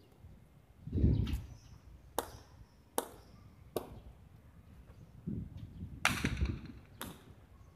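Sharp knocks of a hard jai alai ball (pelota) striking the concrete court and walls: three spaced under a second apart and one more near the end. A dull low thump about a second in is the loudest sound.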